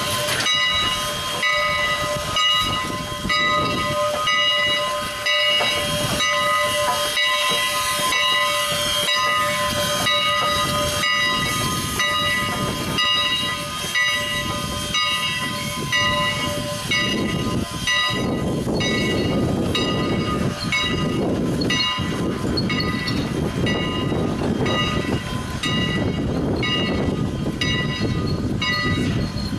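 Canadian National 89, a 2-6-0 Mogul steam locomotive, hissing steam with a steady ringing tone. Partway through, a deeper rumble joins and the tone breaks into a regular pulsing beat.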